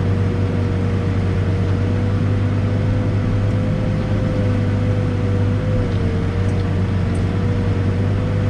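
Backhoe's diesel engine running steadily as it digs, a constant low drone with a steady higher whine over it that dips briefly about six seconds in.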